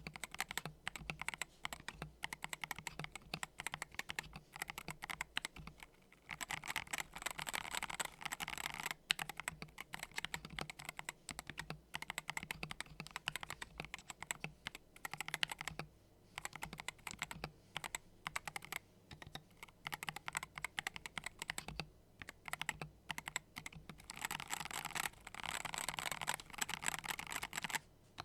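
Keyboard fitted with factory-lubricated Gateron magnetic switches being typed on: rapid keystroke clicks in runs broken by short pauses, with the fastest flurries about a quarter of the way in and near the end.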